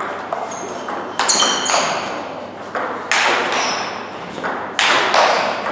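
Table tennis rally: the ball clicks off the bats and the table in quick succession, with three louder strikes about a second and a half to two seconds apart that echo in the hall, from topspin and smash strokes played against chopped returns.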